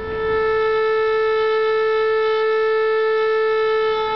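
A home-built, all-vacuum-tube theremin played through a guitar amplifier, sounding a single steady tone rich in overtones. It swells up in volume over the first half second as the hand moves at the volume antenna, holds one pitch, and drops away near the end.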